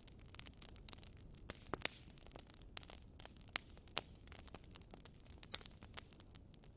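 Wood fire crackling in a fireplace: irregular sharp pops and snaps, a few of them louder, over a low steady rumble.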